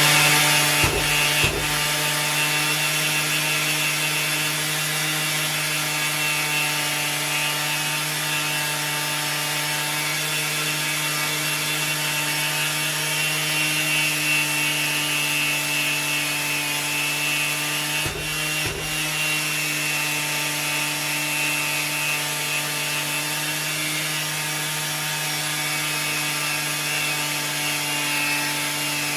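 Electric orbital sander running steadily while sanding a metal alloy wheel with 180-grit paper, a constant motor hum with a few brief dips, about a second in and again about 18 seconds in.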